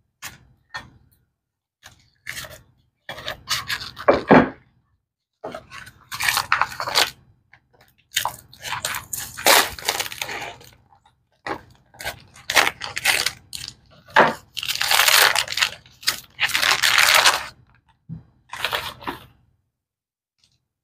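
Clear plastic wrap crinkling and tearing as it is cut with scissors and pulled off a cardboard box, in irregular bursts of rustling. The longest, loudest crinkling comes about three-quarters of the way through.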